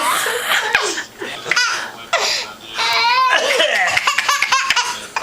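A small child laughing in repeated high-pitched bursts, with coughs in between that set the laughter off.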